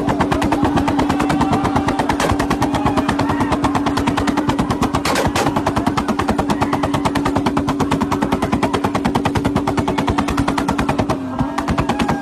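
Toyota Supra's engine held at a fixed rev limit on a two-step launch limiter, its exhaust firing a rapid, even string of bangs, many per second, over a steady engine note, with flames shooting from the exhaust. The note wavers slightly near the end.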